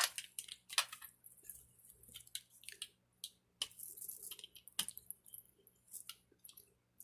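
Paper handling and a hand brayer rolled over freshly glued collage papers: scattered light rustles, crinkles and small taps, with a few longer, softer rubbing passes near the middle.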